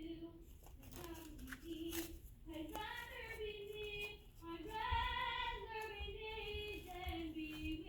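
A child's voice singing quietly, a slow tune with long held notes.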